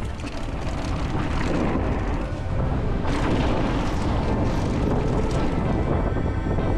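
Wind buffeting the on-board camera's microphone, with the rumble of mountain bike tyres rolling down a gravel and dirt jump line. The rumble builds over the first couple of seconds as the bike picks up speed, then runs on loud and steady.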